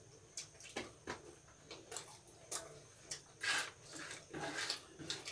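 Close-up eating sounds of rice and curry eaten by hand: wet chewing and lip-smacking, with short irregular clicks about one or two a second.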